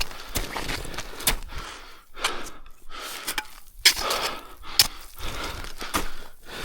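A climber's heavy breathing, in irregular breaths of about half a second, mixed with sharp crunching steps or knocks of boots or gear.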